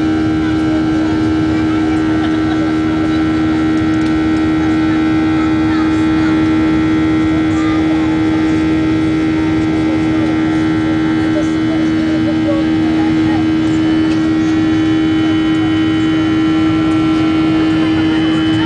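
Boeing 737-800's CFM56 jet engines running steadily at high thrust, a loud even drone with a strong low hum and several steady whining tones above it.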